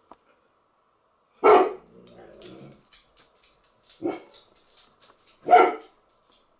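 A dog barking three times, about a second and a half to two and a half seconds apart, with a short low growl after the first bark.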